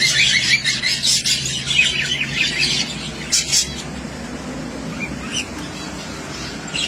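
A group of zebra finches chirping and calling, with many quick repeated chirps for the first three and a half seconds or so, then only scattered single calls.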